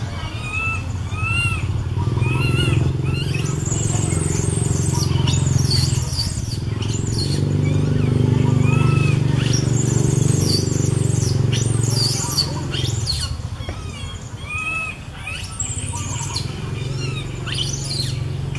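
Baby macaque calling out over and over in short, high, squeaky arched cries. A low motor hum rises and fades twice in the background.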